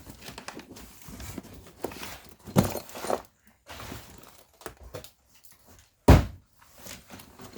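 Packaging being opened and kit parts handled: irregular rustling, clicks and knocks, with a heavier thud about two and a half seconds in and a louder thud about six seconds in.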